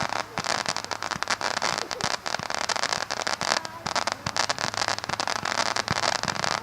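Fireworks crackling: a dense, irregular run of quick pops and snaps over a steady hiss.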